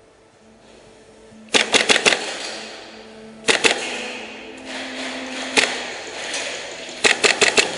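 Airsoft guns firing in quick strings of sharp cracks: about five shots, then two or three, then one, then about five more. Faint background music with steady tones runs underneath.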